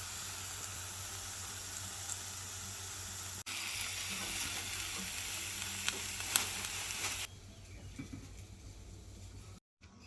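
Food sizzling on a hot grill plate, a steady high hiss that gets louder about a third of the way in and cuts off abruptly a little past the middle.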